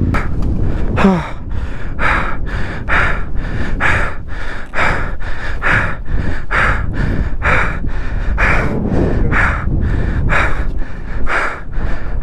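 A person panting hard, about two quick breaths a second, out of breath from the effort of pushing a stuck motorcycle. A steady low rumble runs underneath.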